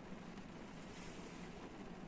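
Rain falling on a parked car's roof and windshield, heard from inside the cabin as a steady, even hiss of drops.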